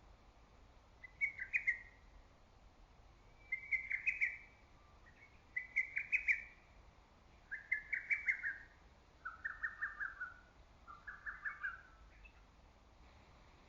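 Lesser cuckoo (hototogisu) singing its quick, stuttering phrase six times, about every two seconds, with the later phrases pitched lower.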